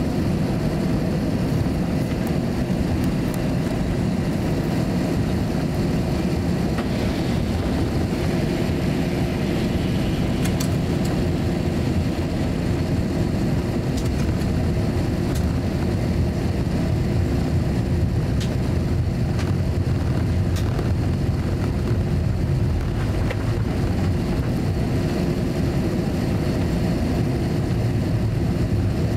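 Cabin noise inside an Airbus A321-200 taxiing: a steady low rumble of the idling jet engines and cabin air, with a faint steady hum and a few light clicks.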